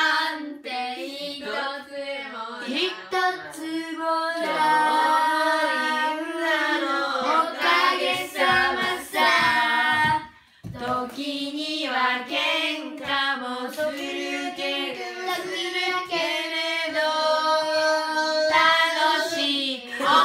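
A group of children singing a homemade family song together in unison, unaccompanied, with a short break about halfway through.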